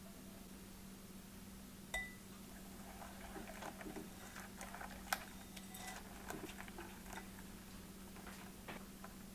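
Silicone whisk stirring a thin egg-yolk and milk mixture in a glass bowl: soft, irregular taps and clicks against the glass. About two seconds in, a single sharp clink with a short ring. A low steady hum underneath.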